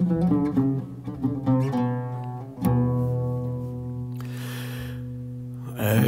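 Oud played solo: a run of quick plucked notes, then a firmly plucked chord about two and a half seconds in that is left ringing and slowly fades.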